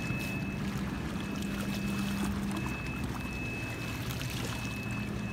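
Steady low motor hum on a fishing boat, with water splashing and trickling out of a landing net as a catfish is lifted from the lake.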